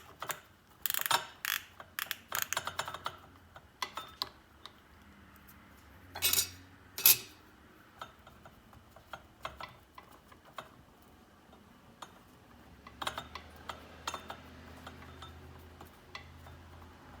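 Hand ratchet clicking as a T25 Torx screw is backed out to free the compressor's piston from its connecting rod. Two louder sharp clatters come about six and seven seconds in, followed by scattered light clicks of small metal parts being handled.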